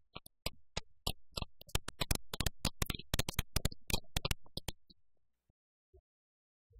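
Applause from a small group: separate hand claps, sparse at first, thickening about a second in and dying away about five seconds in.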